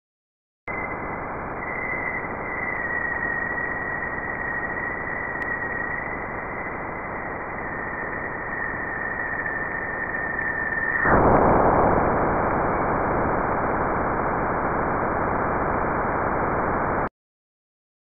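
Juno's Waves instrument electric-field data turned into audio as the spacecraft crosses Jupiter's bow shock. First a hiss with a thin, steady high tone, the upstream plasma oscillations; about eleven seconds in the tone ends and a sudden, louder rush of noise takes over, the turbulence of the bow shock crossing. It cuts off abruptly about a second before the end.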